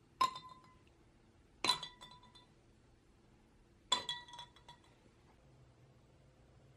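Three ice cubes dropped one at a time into a tall drinking glass of milk, each hitting the glass with a ringing clink; the three clinks come over about four seconds.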